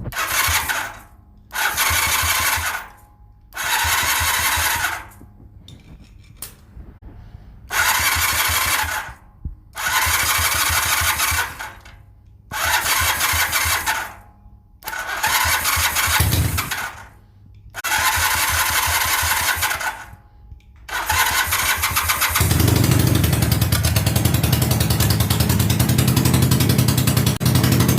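Honda CB400T parallel-twin motorcycle engine being cranked over in about eight short attempts with pauses between them, then catching about two-thirds of the way in and running steadily: a first start.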